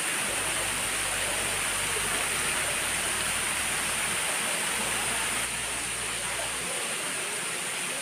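Waterfall pouring down tiered rock ledges: a steady, even rush of falling water, slightly softer from about five seconds in.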